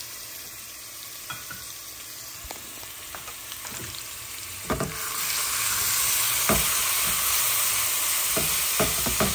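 Sofrito and tomato sauce frying in oil in a metal pot, a low sizzle that grows louder about five seconds in as a spatula stirs it. Several knocks and scrapes of the spatula against the pot come near the end.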